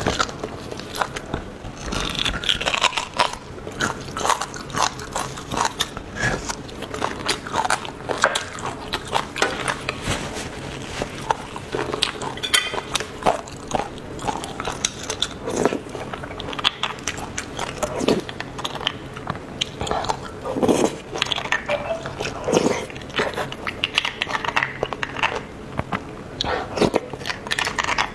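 Close-miked eating sounds: biting and chewing glazed beef bone marrow, with irregular wet mouth smacks and clicks. A metal spoon scrapes marrow out of the bone at times.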